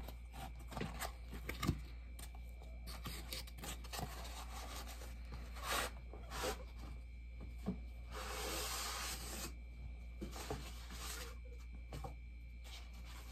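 Hands handling bobblehead packaging: rubbing and scraping with scattered light knocks and clicks, and a longer rustle about eight seconds in.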